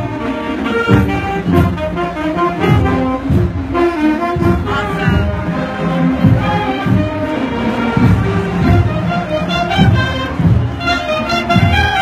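High school marching band playing as it marches: brass, including sousaphone, over a steady bass-drum beat about two strokes a second.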